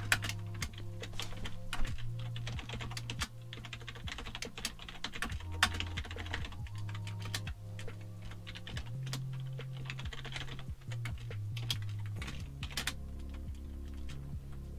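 Typing on a computer keyboard: irregular runs of sharp key clicks with short pauses between them.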